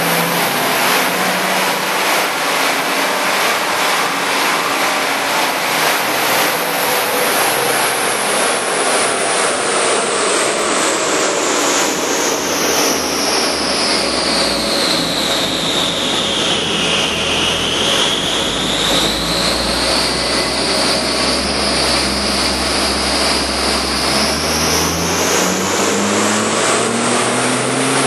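Audi S4 running on a chassis dynamometer: a loud, steady engine and roller noise under a high whine that slides down in pitch through the first half and climbs back up in the second. Near the end the engine note starts rising.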